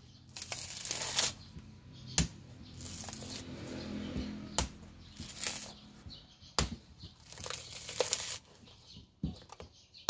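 A large chopping knife strikes into a mature coconut's fibrous husk several times, a second or two apart. Between the blows there is tearing and rustling as the husk fibres are pried and ripped away.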